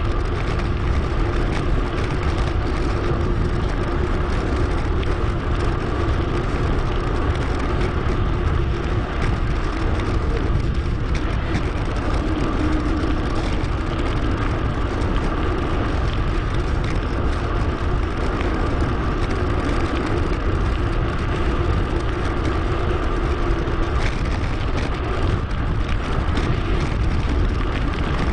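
Steady rush of wind on the microphone with tyre and road noise from a mountain bike riding along at a steady pace, sped up 2.5 times.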